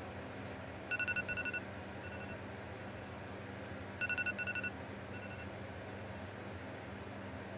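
Electronic alarm beeping: a quick burst of short beeps about a second in and again about four seconds in, each followed by a fainter, shorter burst, the sound of a wake-up alarm going off.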